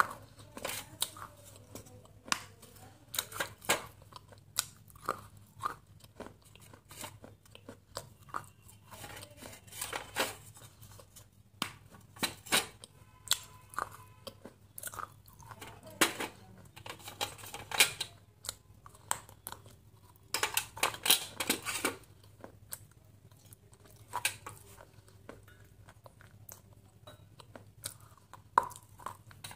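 Close-miked biting and chewing of soft, water-soaked chunks: short crunches and crackles come in irregular clusters, with quieter chewing in between.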